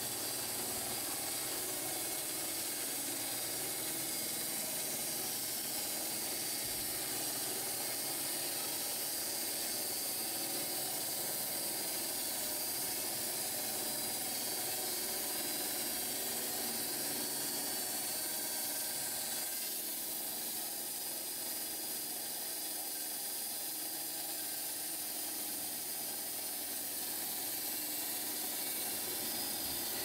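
Portable band sawmill running, its band blade sawing lengthwise through a pear log with a steady hiss over the motor's drone. The sound eases a little about two-thirds of the way through.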